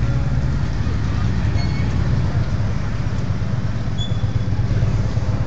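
Motorcycle engine idling with a steady low rumble.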